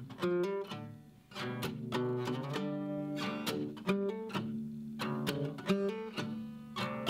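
Acoustic guitar being strummed, playing a run of chords with sharp, repeated attacks.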